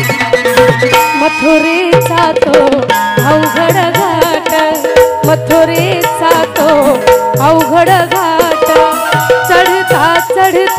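Instrumental interlude of a Marathi folk song: a steady hand-drum beat with rattling percussion under a wavering melody line.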